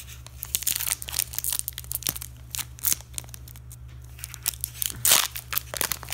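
Foil wrapper of a Pokémon TCG Generations booster pack crinkling and being torn open along the top, in many small crackles with a louder rip about five seconds in.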